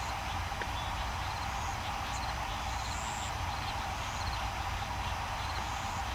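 Steady radio-channel hiss over a low hum from the Apollo 13 mission communications recording, heard between transmissions, with faint short high tones now and then.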